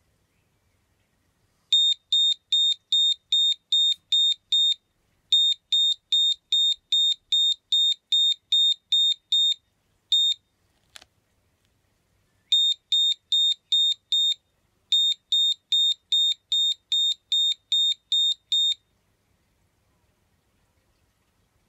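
Power inverter's built-in alarm beeping: short, high-pitched beeps, about three a second, in runs of a few seconds with brief breaks. This is its fault warning, with the red fault light lit. There is a faint click about halfway through.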